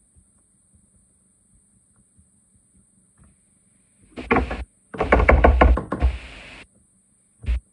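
Fork knocking against a metal pan: a short clatter about four seconds in, then a run of fast knocks, about seven a second, for a second and a half, and one more knock near the end.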